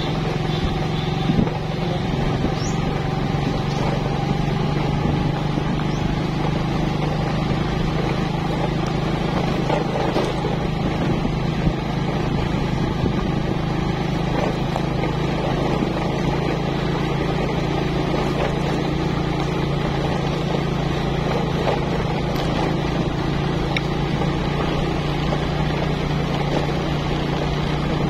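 Motorcycle engine running at a steady cruising speed, a constant low hum, over tyre and road noise on a dirt track, with a couple of brief knocks.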